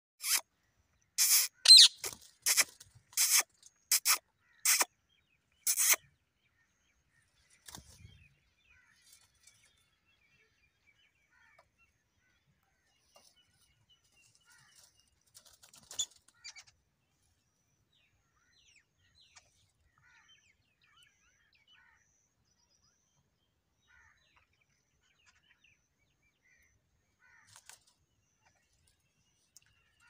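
Rose-ringed parakeets giving a run of about eight short, harsh screeches over the first six seconds. Then only faint scattered sounds, with one faint call about 16 seconds in.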